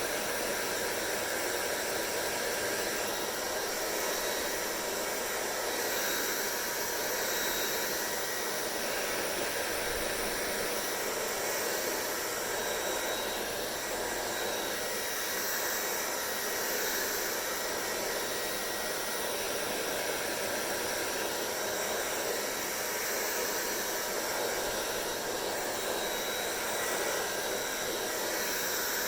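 Hair dryer running steadily: an even airflow rush with a faint constant motor whine, unchanging throughout.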